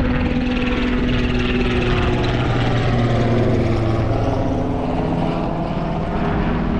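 Helicopter passing overhead: a steady engine and rotor drone with several humming tones, its pitch sinking slightly over the last few seconds.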